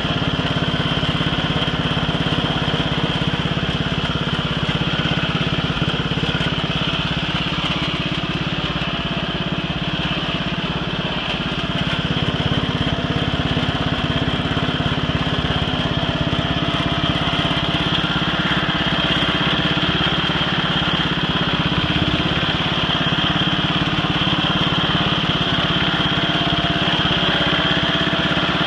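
Allen Roper RT13 garden tractor's engine running steadily as it drives over rough, overgrown ground, heard from the driver's seat.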